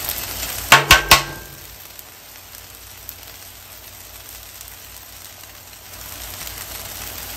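Steak and vegetables sizzling on a hot Blackstone flat-top griddle, a steady hiss. About a second in come three sharp clinks, the loudest sounds.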